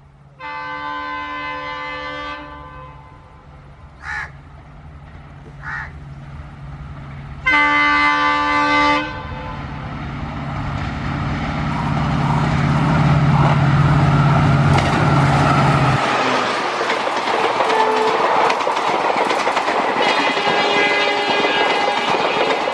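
WDP4B diesel-electric locomotive sounding its multi-tone horn: a long blast, two short toots, then a second long blast. The train then runs through at speed, the locomotive's engine drone and rail noise rising as it passes. The engine drone drops away and the coaches' wheels clatter on the rails.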